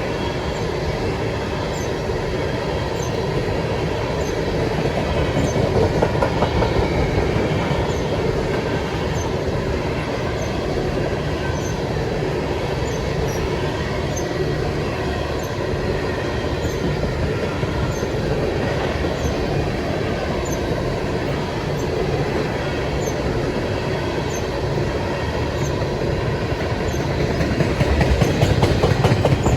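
Empty ethanol tank cars of a freight train rolling past, with a steady rumble of steel wheels on the rail that swells slightly near the end.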